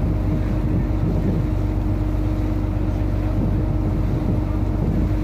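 A small boat's engine running steadily under way, a constant even drone with a steady pitch.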